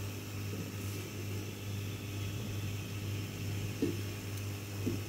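Steady low hum with a faint hiss from a lit gas stove burner, with a few light knocks of a metal oil tin near the end as cooking oil is poured into a pot.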